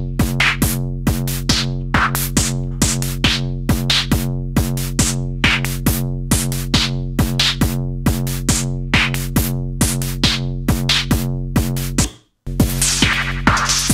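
Electronic drum groove from Eurorack drum voices, most likely the Ornament and Crime's Bugcrack, with even hits about four a second over a steady low drone. It cuts out about 12 seconds in, and half a second later a new pattern starts with brighter, hissier hits.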